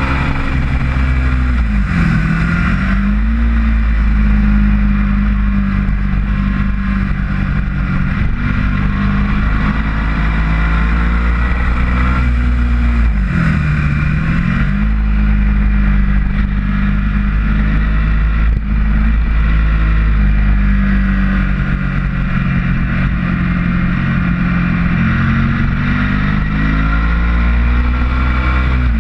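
Onboard sound of a Ducati motorcycle's engine running hard on a race track, with wind rush over the microphone. The engine note dips and recovers briefly twice, about two seconds in and again about thirteen seconds in, as gears change, and holds steady in between.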